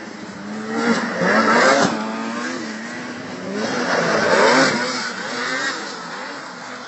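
Racing snowmobile engines passing by, the engine sound swelling twice: about a second in and again around four seconds in, with the pitch rising and falling as each pass goes by.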